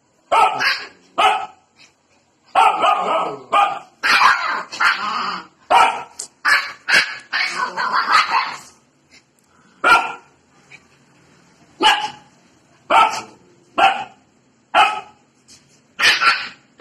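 Siberian husky puppies barking: a few short barks, then a rapid flurry of overlapping barks, then single barks about once a second.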